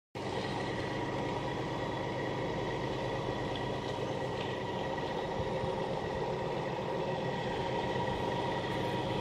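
Diesel engine of a semi tractor running steadily at low speed while hauling an oversize-load manufactured-home section. The sound starts abruptly and stays level throughout.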